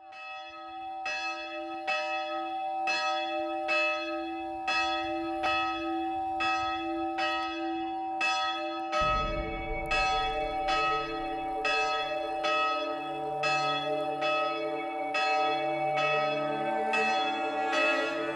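Church bells ringing: a single bell tolls at roughly one stroke a second, and about halfway through further, deeper bells join in so that several ring together.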